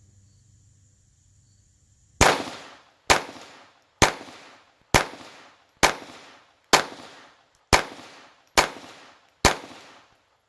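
Glock 44 .22 LR pistol fired nine times in a steady string, about one shot a second, each shot followed by a short echo.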